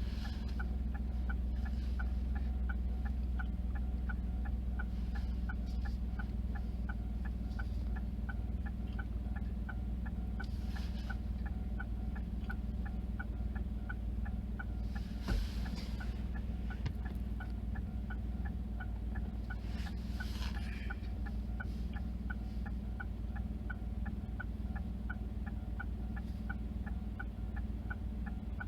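Japanese railroad crossing warning bell ringing in a steady, even rhythm for the whole stretch, over a continuous low rumble, with one brief thump about 15 seconds in.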